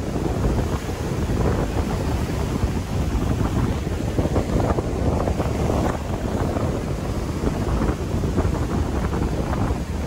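Strong typhoon-driven wind buffeting the microphone in uneven gusts, with rough lake waves breaking and splashing on a rocky shore.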